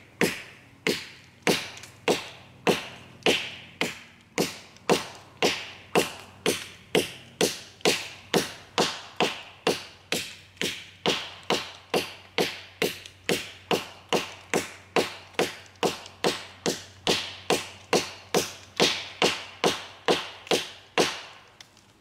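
A large curved-blade chopping knife hacking into a fallen log: a steady run of sharp wooden chops, a little over two a second, stopping near the end.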